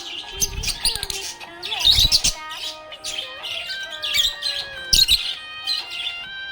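Budgerigar chirping in quick runs of short, high notes over background music with held notes.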